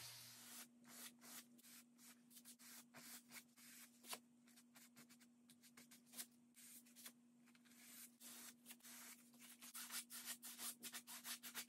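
A wide flat bristle brush stroking and tapping across a wet oil-painted canvas in many short, soft strokes, blending paint; the strokes come quicker and a little louder near the end. A faint steady hum sits underneath.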